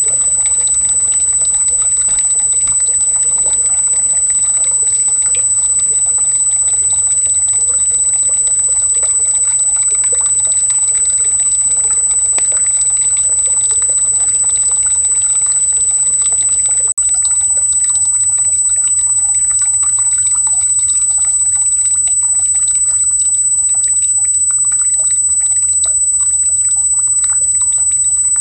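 Stream water trickling, under a loud, steady, very high-pitched tone that drops out for an instant about seventeen seconds in.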